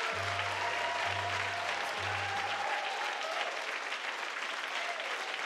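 Audience applauding after a song. Three low held instrument notes sound under it in the first two and a half seconds.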